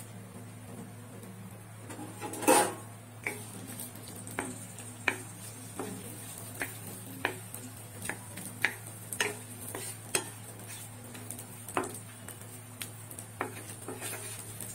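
Wooden spatula stirring sliced onions, green chillies and bay leaves frying in mustard oil in a coated frying pan, knocking against the pan in irregular taps roughly once a second, with one louder knock about two and a half seconds in.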